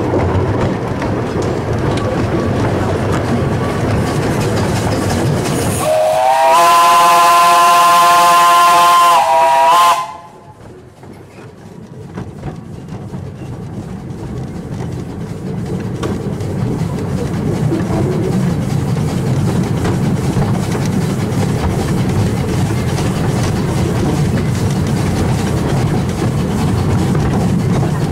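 Steam whistle of the Bagnall 2-4-0 tank engine Sea Lion, one loud blast of about four seconds starting around six seconds in, rising slightly in pitch as it opens and cutting off sharply. Under it runs the steady rumble of the narrow-gauge train on the move.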